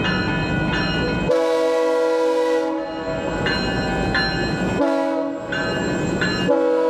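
WES commuter railcar's horn sounding for the grade crossing: a long chord-like blast about a second in, a short one near five seconds, and another long one starting near the end. A railroad crossing warning bell dings steadily throughout, about one and a half strikes a second.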